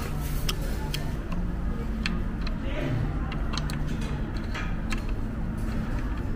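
Restaurant ambience: a low murmur of background chatter and a steady hum, with a scattering of short, sharp clicks and clinks of utensils on plates.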